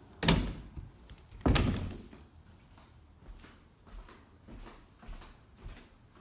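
A door banging shut twice, a little over a second apart, followed by several fainter knocks.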